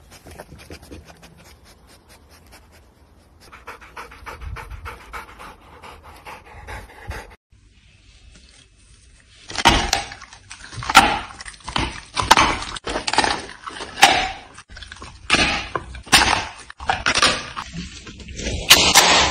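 A Rottweiler gnawing raw meat on a bone. Quiet wet chewing and clicking come first; after a short break, loud rhythmic chewing follows at about one stroke a second.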